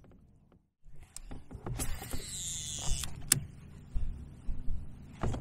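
Fishing reel whirring for about a second, then a sharp click and lighter clicks and handling noise as the rod and reel are worked.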